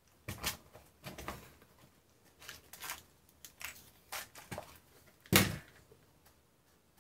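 Small clear plastic compartment box of screws being handled and its lid opened: a series of light plastic clicks and rattles, with one louder knock about five seconds in.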